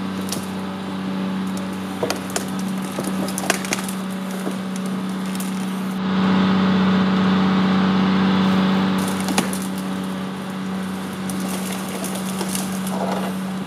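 Brush and branches cracking and snapping as an overturned SUV is dragged up a brambly riverbank on a tow strap, over a steady mechanical hum from the pulling machine. The hum grows louder for about three seconds midway, with a few sharp snaps throughout.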